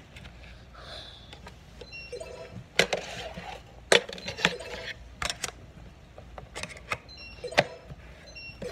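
Round metal fidget spinner tins handled on a counter: a string of sharp clicks and knocks, some with a brief metallic ring.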